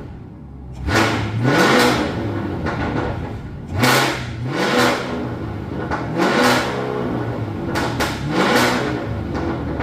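Cadillac CT5-V Blackwing's supercharged 6.2-litre V8, through a Soul Performance downpipe and Corsa cat-back exhaust, revved about four times, rising quickly in pitch each time. Sharp pops and crackles come from the exhaust as the revs drop.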